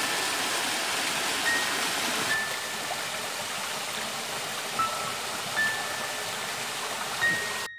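Steady rushing of a small waterfall and stream, with several short high ringing notes sounding about every second or two over it. Near the end the water cuts off abruptly and one ringing note carries on.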